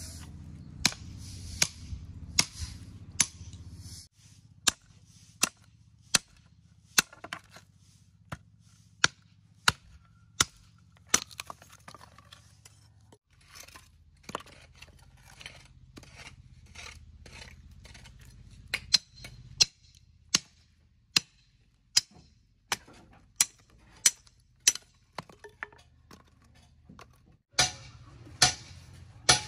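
Machete blade chopping into wood on a wooden stump, splitting kindling: a run of sharp, dry knocks, roughly one to two a second, with a few short pauses.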